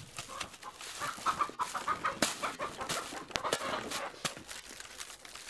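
Chickens clucking, over crackling and rustling of the dry split stalks of a woven mat as it is knelt on and worked by hand.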